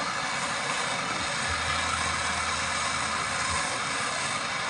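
Steady hissing rush with no breaks, joined by a low steady hum about a second and a half in.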